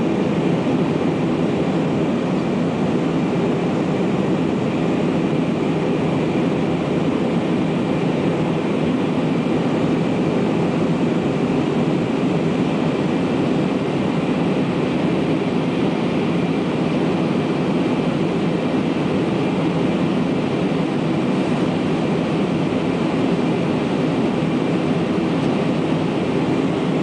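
Steady jet airliner cabin noise in the climb after takeoff: a constant rush of engines and airflow heard from inside the cabin, with a faint steady high whine over it.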